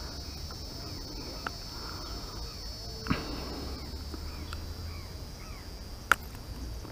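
Outdoor ambience: a steady high-pitched insect drone with repeated short bird chirps, and a few sharp clicks about one and a half, three and six seconds in.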